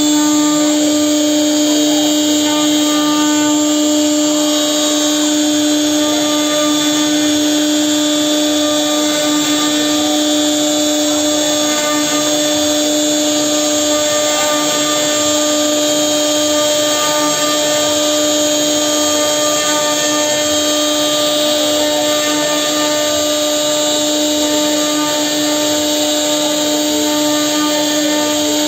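CNC wood router's spindle whining at one steady pitch with its overtones, over the rough noise of the bit carving a relief pattern into a wooden door panel.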